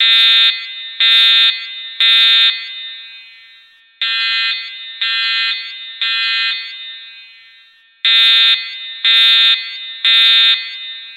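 Voice-evacuation fire alarm sounding the temporal-three evacuation tone: three loud half-second horn tones about a second apart, a short pause, then the pattern again, three times in all. Each tone leaves a fading echo, and the middle set of three is quieter.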